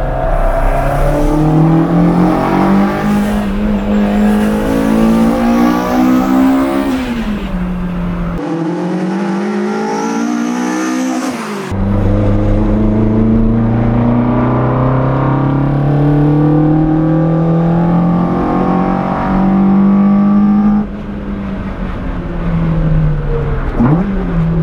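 Toyota 4A-GE 16-valve inline-four on individual throttle bodies, revving hard under acceleration, its pitch climbing in steps and dropping back at each gear change. Near the end the revs fall away.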